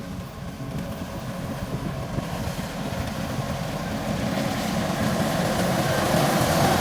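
Rice combine harvester engine running steadily, growing louder all the way through.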